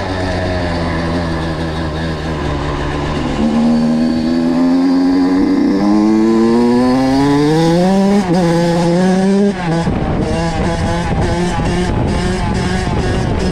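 Kawasaki KX85 85cc two-stroke single-cylinder engine accelerating hard, its pitch climbing through the gears with a brief drop at each shift about 6 and 8 seconds in. About 9.5 seconds in it comes off the throttle and runs choppy.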